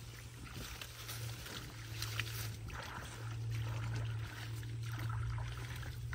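Water sloshing and splashing in small irregular bursts, over a steady low hum.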